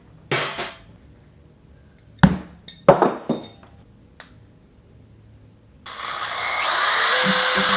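A few handling knocks and clicks, then an electric motor appliance is switched on about six seconds in and runs loud and steady with a rising then level whine. It is being tried as a way to get into a box sealed with heavy tape.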